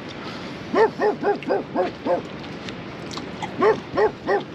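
A dog barking in quick runs: about six rapid barks, a pause, then about three more near the end.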